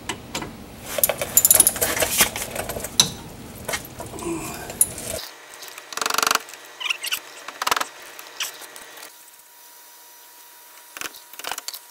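Ratchet wrench with a 14 mm socket clicking as it works the brake caliper bolts loose, with metal clinks and rattles. About five seconds in the sound changes abruptly, and scattered clanks and clicks of tools and brake parts being handled follow.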